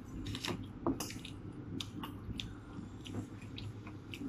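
A person chewing food, with scattered small clicks and scrapes of a metal spoon scooping fried rice.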